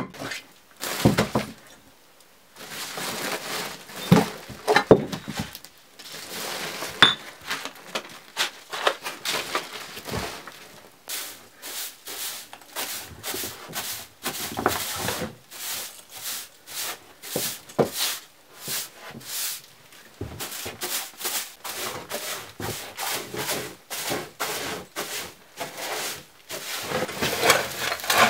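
A straw broom sweeping dry debris across a floor in short, scratchy strokes, coming quick and regular at about two a second from about a third of the way in.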